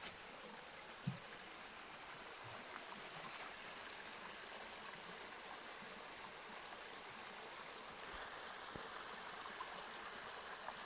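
Small rocky creek trickling over stones: a steady, faint wash of running water. A single thump about a second in.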